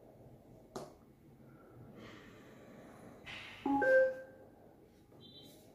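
Maquet Servo-air ventilator running on a test lung, with soft puffs of airflow. A short, loud chime-like tone sounds about four seconds in, and a brief high beep comes near the end.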